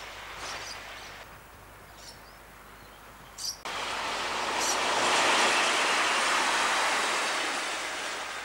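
Adelaide 'Red Hen' diesel railcar passing close by: the engine and wheel noise builds to its loudest about halfway through, then fades. Before it, a fainter train sound is ended by a sharp click where the recording is spliced, about three and a half seconds in.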